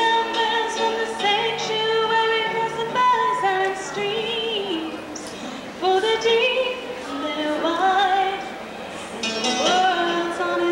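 A young woman singing solo into a handheld microphone, in phrases of held notes with short pauses about five and nine seconds in.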